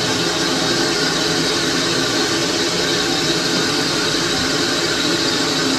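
Steady hiss of steam escaping from beneath a standing narrow-gauge steam locomotive, unbroken and even in level.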